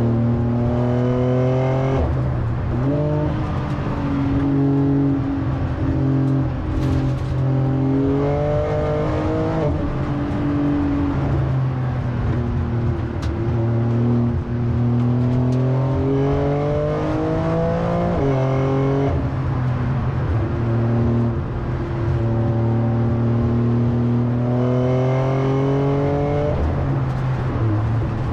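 Porsche 911 Turbo S twin-turbo flat-six engine, heard from inside the cabin, pulling hard up the hill climb. Its pitch climbs over several seconds and then falls back sharply, about four times, over a steady low drone.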